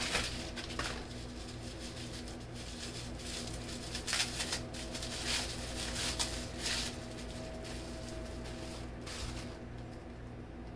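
Small packaging being handled and opened by hand: irregular rustling and clicking that stops about nine seconds in, over a steady low hum.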